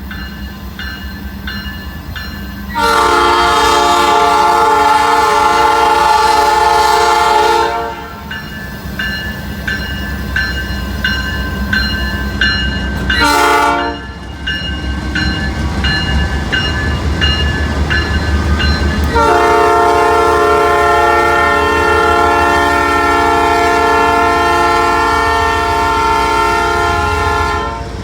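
Diesel freight locomotive sounding its multi-chime air horn as it passes: a long blast, a short one, then another long blast, over the low rumble of the engine. Between the blasts a bell rings about three times a second.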